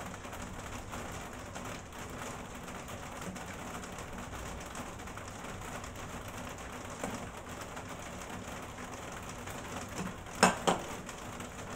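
Wet boiled spaghetti being lifted from a steel pot with a pasta server and dropped into a dish: a steady wet hiss with a light patter of dripping water. About ten and a half seconds in come two sharp knocks as utensils or dish strike the pot.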